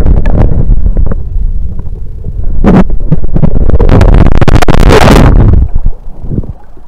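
Seawater sloshing and churning against a camera's waterproof housing as it dips below the surface during wading: loud, heavy low noise with sudden splashy surges, easing off sharply near the end as the camera comes back up out of the water.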